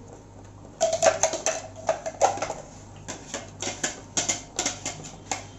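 A spoon stirring thick onion-tomato paste in butter in a kadai, clicking and scraping against the pan in quick strokes that start about a second in.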